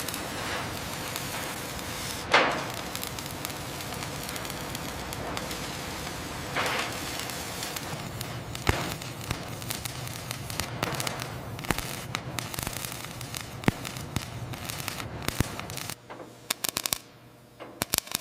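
A steady crackling hiss with scattered sharp clicks and knocks, the loudest a crack about two seconds in. It drops away suddenly near the end, leaving a few quick ticks.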